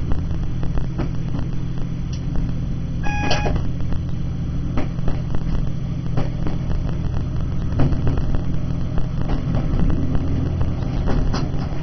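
Diesel multiple unit's engine drone heard from inside the driver's cab, a steady low hum, with the knocks and clicks of the wheels over the track throughout. A brief high tone sounds about three seconds in.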